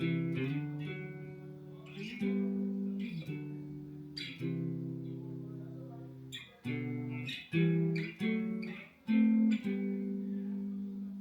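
Guitar being played: a practice phrase of plucked notes and chords, several of them cut off short, with the last chord left ringing near the end.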